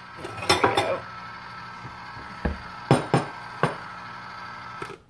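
Clinks and knocks of dishes as a bowl is taken out and handled, over the steady hum of a Pampered Chef electric ice cream maker running. The machine is switched off with a click near the end, and the hum stops.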